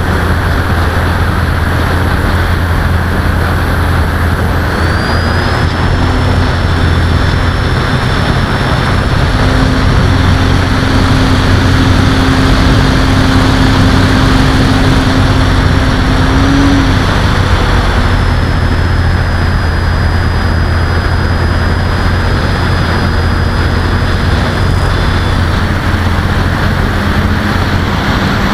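Parkzone Sport Cub RC plane's electric motor and propeller running, heard from a camera on the plane, with air rushing past. A high motor whine rises in about five seconds in, drops a step around eighteen seconds and stops a couple of seconds before the end, as the throttle is changed.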